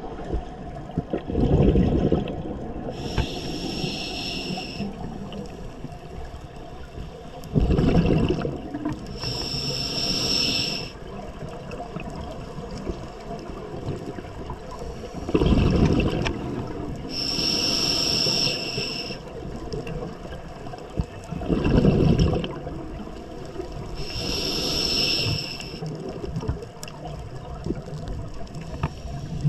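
Scuba diver breathing through a regulator: a rumbling burst of exhaled bubbles, then about two seconds of hissing inhalation through the demand valve, repeating about every seven seconds, four breaths in all.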